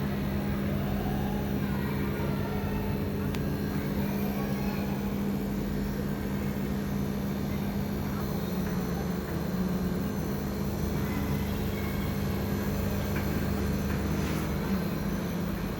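Air conditioner unit running with a steady, even hum.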